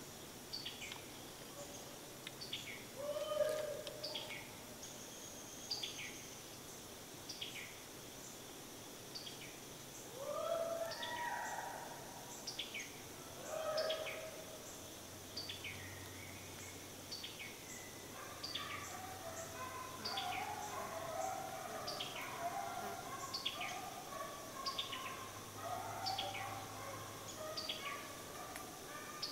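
Hunting hounds on a deer drive give a few drawn-out howls, then bay more steadily from about two-thirds of the way through as the pack strikes a track. Behind them a bird repeats a short falling chirp about once a second.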